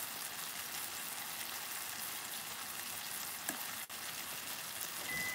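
Spinach and cherry tomatoes sizzling in a frying pan in a soy-sauce and meat-juice liquid: a steady frying hiss.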